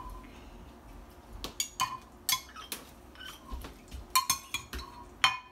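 Metal spoons clinking and scraping against bowls and a pot while applesauce is spooned out: an irregular run of sharp clinks, the loudest in the middle and near the end.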